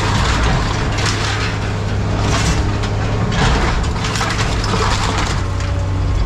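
Heavy scrap-handling machine's engine running steadily while a John Deere is crushed and torn apart, with several crunching, cracking breaks of metal.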